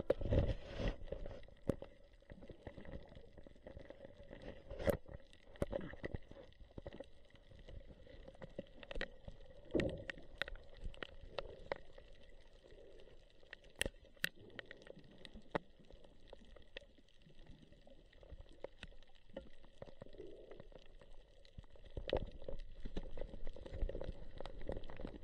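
Underwater sound through an action camera's waterproof housing: a muffled rumble of water movement, with scattered sharp clicks and knocks. It is louder at the start and again from about three seconds before the end.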